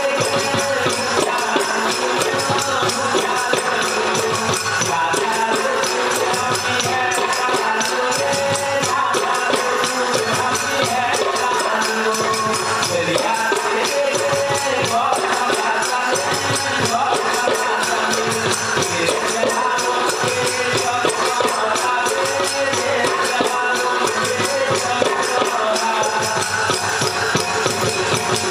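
Goan Kunbi folk-dance music: steady jingling hand percussion keeping an even beat under a wavering melody line.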